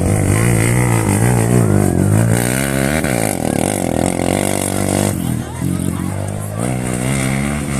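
Off-road race vehicle engines revving, several at once, their pitch rising and falling and overlapping, with the higher part of the sound dropping away a little past the middle.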